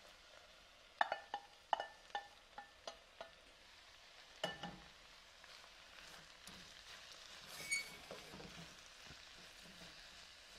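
Wet collard greens sizzling in hot oil with onions in a stainless pan, the water still on the leaves spitting in the fat. A wooden spoon stirring them knocks against the pan several times in the first few seconds, with a heavier thump about halfway and a short metallic clink near eight seconds.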